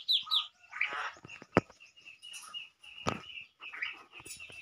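Birds chirping: short high peeps scattered through, with two sharp knocks, about one and a half and three seconds in.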